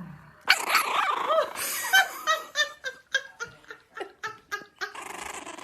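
A dog vocalizing: a burst of wavering, pitch-bending calls, then a string of short pitched barks, about two to three a second.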